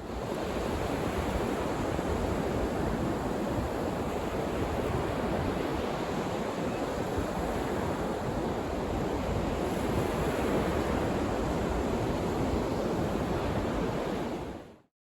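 Steady rushing noise of surf breaking on a sandy beach, mixed with wind on the microphone. It fades in at the start and fades out near the end.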